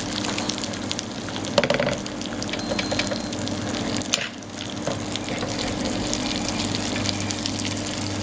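Pistachio-, sesame- and pine-nut-crusted tuna steaks searing in hot olive oil in a frying pan: a steady sizzle with scattered crackles, dipping briefly about halfway through.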